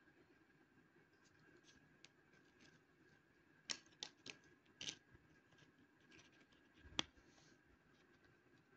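Trading cards being handled: a few soft clicks and scrapes as the cards slide against each other and the woven mat, with one sharp tap about seven seconds in.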